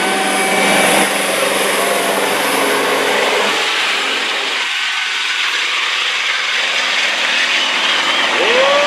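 Big-rig semi tractors' diesel engines running at full throttle under heavy load while pulling a weight-transfer sled, a loud steady engine noise. About halfway through it cuts to a second truck's pull.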